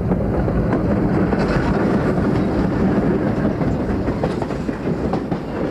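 Baldwin center-cab diesel locomotive, with an engine on either side of its cab, running past close by, then its train of cars rolling past with wheels clattering on the rails. Loud and steady throughout.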